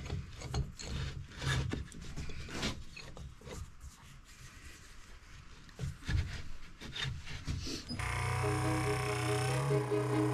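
Irregular light knocks and handling noises. About eight seconds in, background string music starts abruptly.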